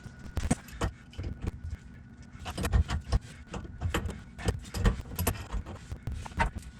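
Irregular clinks and knocks, a dozen or more, from hands and tools working on a dishwasher's water supply connection.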